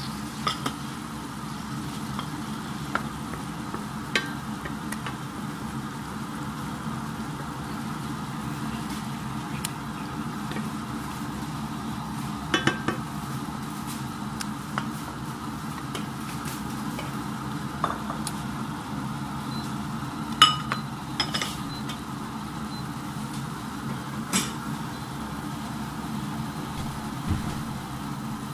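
Fruit-jam syrup bubbling and sizzling steadily in a stainless steel pan as it is stirred, with a few sharp clicks of the spatula against the pan.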